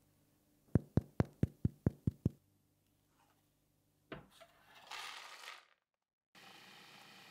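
Seven quick, sharp knocks, about five a second, from fingers tapping the crust of a freshly baked sourdough loaf. A thump and a short rustle follow a couple of seconds later.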